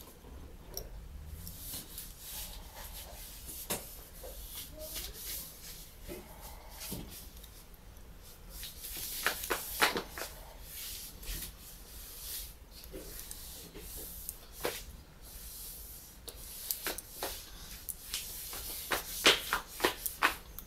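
Light clicks and rubbing from a Sony DSC-QX10 lens unit being turned over and worked on by hand, with a small metal tool. Sharper clusters of clicks come about nine seconds in and again near the end.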